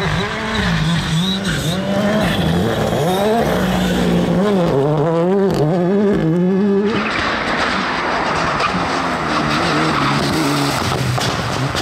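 Rally car engines revving hard, the pitch rising and falling through gear changes and throttle lifts. About seven seconds in, a loud rush of gravel and tyre noise takes over. Engine revving returns near the end.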